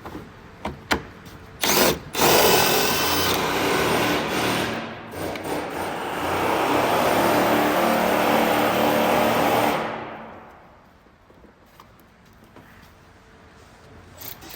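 Power drill running for about eight seconds while backing out a fastener, after a few short clicks; the whirring dies away about two-thirds of the way in.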